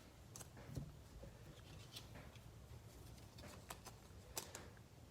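Near silence with a few faint, scattered clicks and ticks of trading cards being handled.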